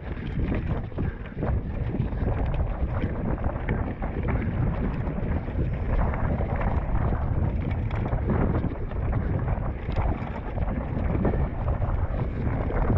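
Wind buffeting a helmet- or bike-mounted GoPro microphone during a mountain bike ride over a rocky trail, a steady low rumble peppered with frequent short rattles and knocks from the bike.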